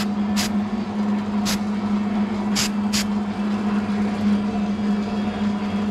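Aerosol can of weld-through primer sprayed in four short hissing bursts over a steady low hum.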